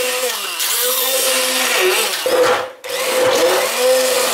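Handheld immersion blender running in a glass jug, blending chunks of watermelon with crushed ice; the motor's pitch dips and recovers over and over as it bogs under the load. It stops briefly about two and a half seconds in and then starts again.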